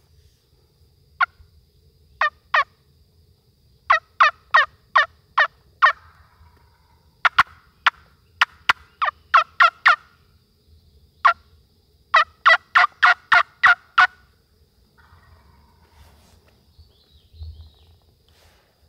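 Series of loud turkey yelps in several runs, evenly spaced at about three notes a second, with short pauses between the runs; they stop a few seconds before the end.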